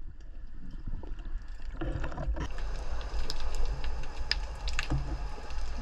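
Underwater water noise picked up through a camera housing as a spearfisher swims up with a speared sea bass: a steady low rumble and wash, louder from about two seconds in, with a few sharp clicks and knocks of gear.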